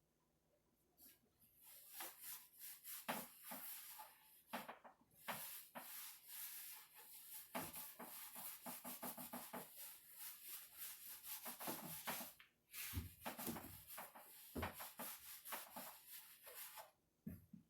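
A damp cloth wiping sanding dust off the bare cedar wood of a chest: quick, irregular rubbing strokes, with brief pauses about a second in, about twelve seconds in and near the end.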